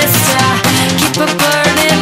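Upbeat dance music with a steady beat.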